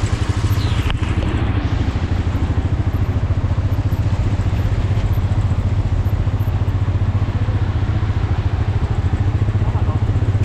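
Motorcycle engine running steadily on the move, with a brief click about a second in.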